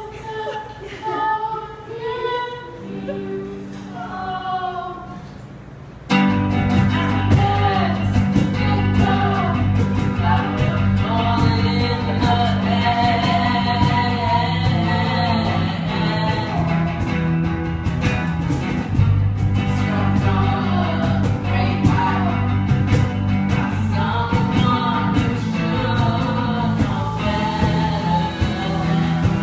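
Live band music: a boy singing over a quiet accompaniment, then about six seconds in the electric guitar and bass guitar come in loudly together and the song carries on full-band with singing.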